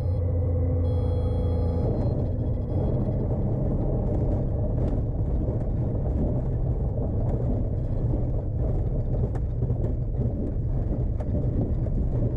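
Cessna 182 on its ground roll over a rough, hard dry-mud and grass strip, heard from inside the cockpit: a steady low engine and propeller drone under a rumble from the wheels, with many small knocks and rattles as the airplane jolts over the bumps.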